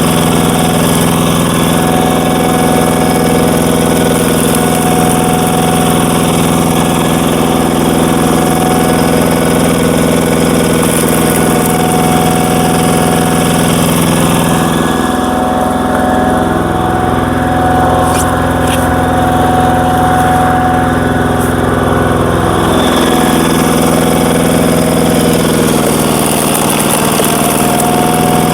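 Single-cylinder diesel engine of a walking tractor running steadily, driving a screw log splitter. About halfway through its pitch sags for roughly eight seconds, the engine coming under load as the screw bores into a log, then picks back up.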